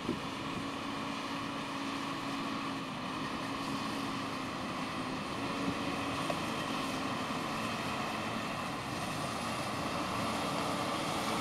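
Mercedes-Benz Actros manure-spreader truck driving across a stubble field, its diesel engine running steadily and growing a little louder as it comes closer.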